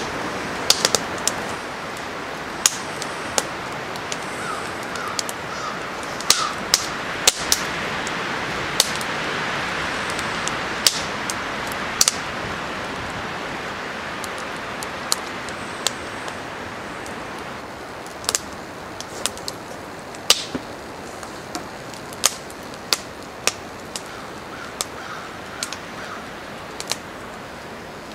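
Wind rushing through the conifer treetops, swelling and then easing after the middle. Scattered sharp cracks and ticks come at irregular moments throughout and stand out above it, with a few faint chirps about five seconds in and near the end.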